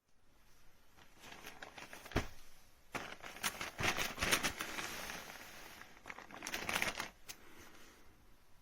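Faint rustling and handling noise with scattered clicks and taps, coming in two stretches, the second shorter and near the end.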